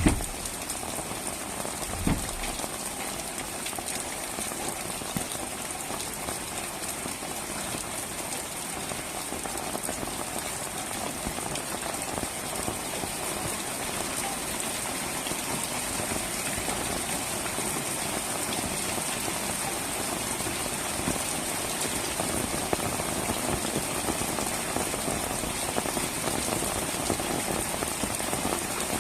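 Pouring rain falling steadily, a dense even patter of drops on a surface, with one dull thump about two seconds in.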